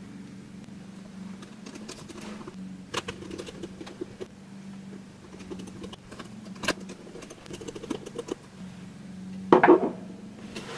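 Small screwdriver working the keyboard retaining screws back into a Dell Latitude 5490, with scattered sharp clicks and ticks of the tip on the screws and case, and a louder knock near the end. A steady low hum runs underneath.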